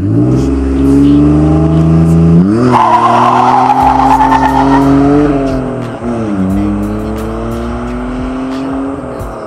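BMW E46 320i straight-six running through an aftermarket racing exhaust under load. The pitch jumps up sharply about two and a half seconds in with a rasping edge, drops about six seconds in, then climbs steadily again.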